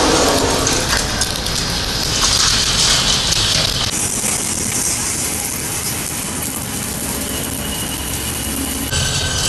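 Stick arc welding on a steel truck axle: a steady crackling hiss from the arc. The sound changes abruptly about four seconds in and again near the end.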